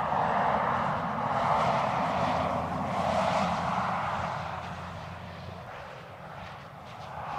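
Land Rover Defender 90 P300, with its turbocharged 2.0-litre four-cylinder petrol engine, driving by on the road: a steady engine drone under tyre and wind rush. The sound fades as the car moves away, lowest about six and a half seconds in, then swells again near the end.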